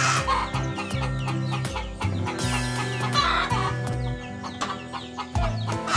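Chickens clucking and squawking over background music with a stepping bass line and a steady beat, with louder bursts of squawking just as it begins and again about three seconds in.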